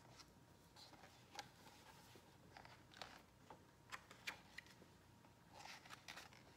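Faint handling sounds of a hardcover picture book being opened and its pages turned: a few soft clicks and a light rustle of paper, otherwise near silence.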